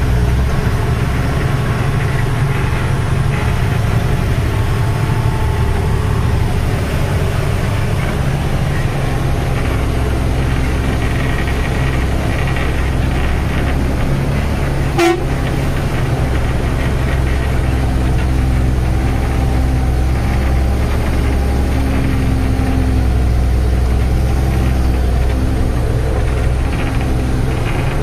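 Tata 3118 truck's six-cylinder diesel engine running steadily under way, heard from inside the cab, with a single sharp knock about halfway through.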